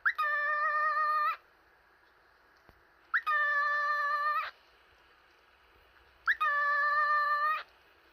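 Cockatiel giving three long, steady calls about three seconds apart, each opening with a short upward swoop and then held for over a second.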